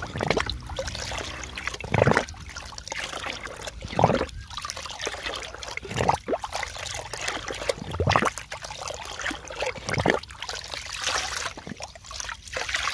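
Soap water mixed with MSG being stirred in a container. The water sloshes with a louder swish about every two seconds.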